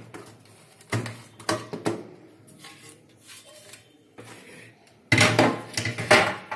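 Plastic casing of an APC Back-UPS being handled and opened by hand. A few clicks and knocks come about a second in, then a louder run of knocks and rattles near the end as the top cover comes off.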